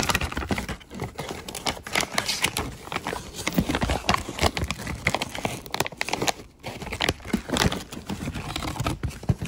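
Thin plastic bag being unwrapped from a revolver by hand, crinkling and rustling in a dense run of irregular crackles. It dips quieter briefly about six and a half seconds in.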